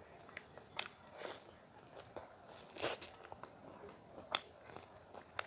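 A person chewing food with the mouth close to the microphone, with several sharp crunches at irregular intervals; the loudest comes about four seconds in.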